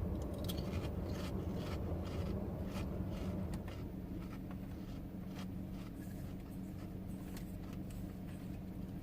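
Potato chips being eaten: irregular, crisp crunches and crackles close to the microphone, over a steady low hum inside a car.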